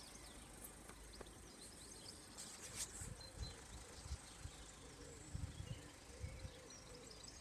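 Faint outdoor ambience: scattered small birds chirping over a quiet background, with a few soft low rumbles.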